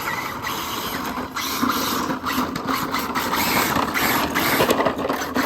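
Electric RC car motor whirring steadily while towing a plastic Big Wheel ride-on, with scraping from the plastic wheels.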